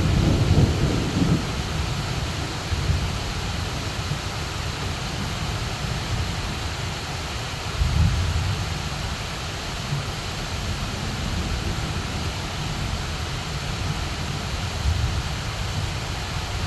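Heavy rain pouring steadily, with low rolls of thunder: the loudest in the first second or so, and smaller rumbles later, one of them about eight seconds in.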